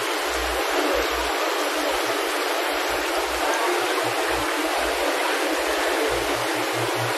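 Water running steadily into a seafood display tray at a fish stall, an even rushing splash with no breaks.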